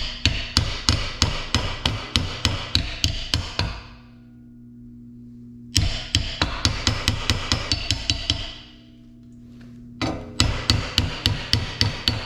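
A hammer rapidly tapping sheet steel clamped in a wooden forming buck, hammer-forming the wheel-lip reveal line of a patch panel. There are three quick runs of blows, about five or six a second, with short pauses between the runs.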